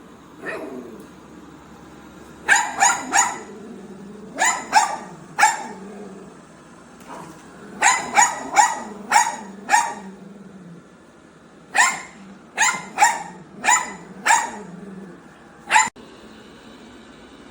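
A dog barking repeatedly, in bunches of three to six sharp barks with short pauses between them.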